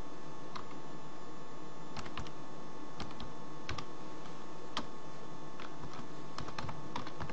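Computer keyboard being typed on: a dozen or so short, irregular key clicks over a steady background hiss.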